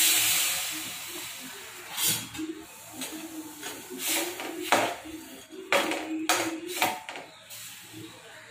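Water pouring from a steel glass into a pan of sugar, fading out about a second in. Then a steel spoon stirs the sugar and water, scraping and clinking sharply against the metal pan several times.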